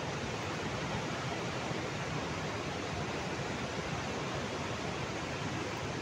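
Steady rushing noise of a mountain river in flash flood, swollen with muddy water and debris.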